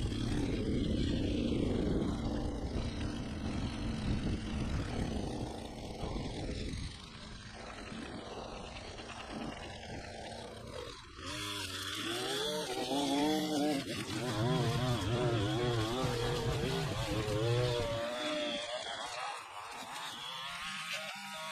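String trimmer running. From about halfway through, its motor speeds up and slows down over and over, with a hiss from the line cutting grass.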